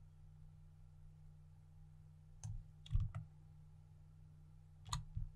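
Computer mouse and keyboard clicks: a single click about two and a half seconds in, a quick cluster around three seconds, and a pair near the end, over a low steady hum.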